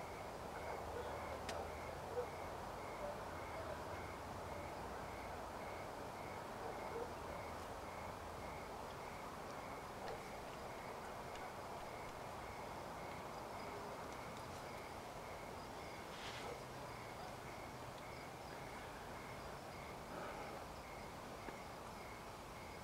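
Quiet outdoor dusk ambience: a faint steady hiss with a soft, regular high pulse about twice a second and a few small scattered ticks.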